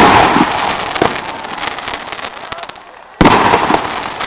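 Fireworks going off: a loud burst at the start trailing into crackling, scattered sharp pops, then another loud burst about three seconds in.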